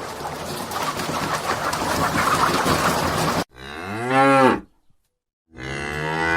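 A cow mooing twice: the first moo, about a second long, rises and falls in pitch, and the second starts about two seconds later near the end. Both come after roughly three and a half seconds of steady noise.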